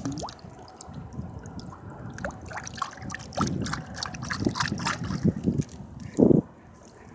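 Water splashing and trickling in irregular small splashes and drips, with a louder splash about six seconds in.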